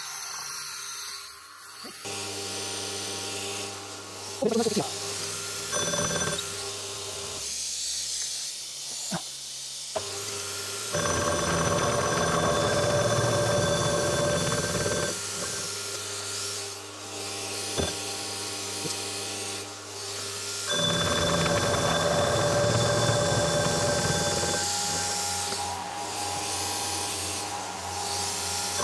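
Milling machine running while cutting gear teeth on a blank held in a dividing head: a steady motor hum with a whine, swelling louder twice for several seconds as the cutter works. A few sharp clicks come in the first ten seconds.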